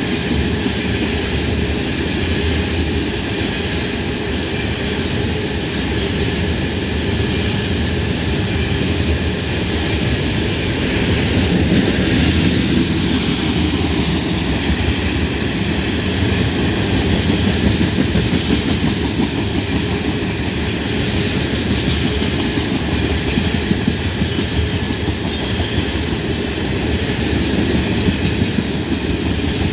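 A freight train's LPG tank cars rolling steadily past, with the continuous rumble of steel wheels on the rails.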